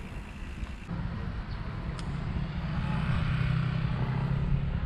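A motor vehicle's engine running close by, a steady low hum that grows louder toward the end, with a single sharp click about two seconds in.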